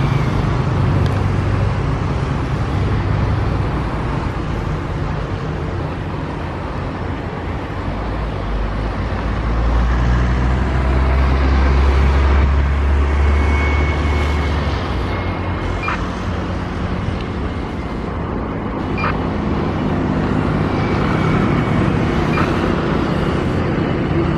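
Boeing 737 jet engines heard at a distance as the airliner lands: a steady jet noise that swells to a deep low rumble about halfway through, as it touches down and rolls out on the runway.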